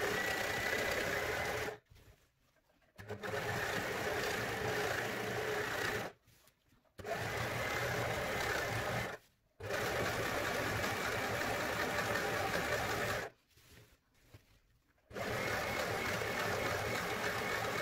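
Brother Strong & Tough overlocker (serger) stitching and trimming the raw edge of a fabric, running steadily in five stretches of two to four seconds with short stops between.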